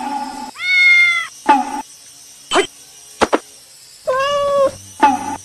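Cat meowing twice: two long, fairly even-pitched meows, one about a second in and one near the end, with a couple of short sharp clicks between them.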